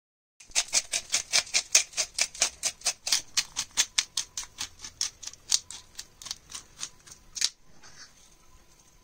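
Hand-twisted spice grinder grinding, a fast even run of sharp clicks, about four or five a second, that stops about seven and a half seconds in.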